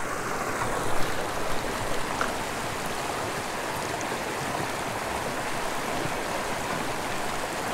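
Small rocky mountain creek running steadily over stones and a shallow riffle, with a couple of light knocks about one and two seconds in.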